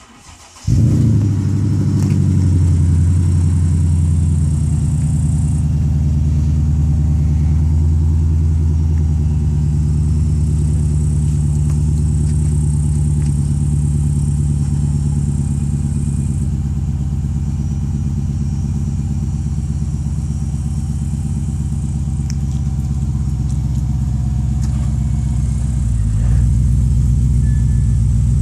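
Mercedes-Benz S500's V8 on a cold start: a short crank, catching within a second, then a loud, steady fast idle. The idle eases slightly as it runs and gets louder again near the end.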